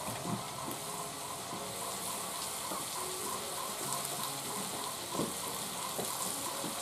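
Chicken and potato curry sizzling in masala in a large iron kadai, a steady frying hiss with a few soft knocks.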